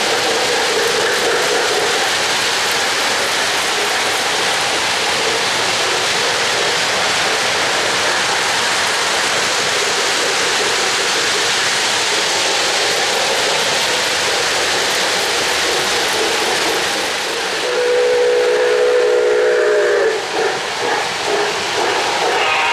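O-gauge model trains running on three-rail track: a steady, loud rushing hiss of rolling wheels and the steam-locomotive sound system of an MTH Santa Fe 4-8-4 Northern. Near the end a model train whistle with several close tones blows for about two seconds.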